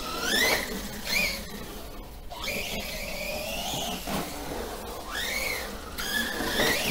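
Brushless electric motor of a Remo Hobby Dinosaurs Master 5 RC monster truck on a 3S battery, whining up and down in pitch several times as the throttle is worked, with a longer held run in the middle.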